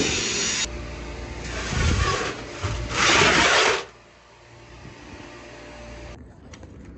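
Rasping, scraping noise of steel sheet metal being handled and rubbed, in bursts, the loudest around three seconds in, then dying down to a low background after about four seconds.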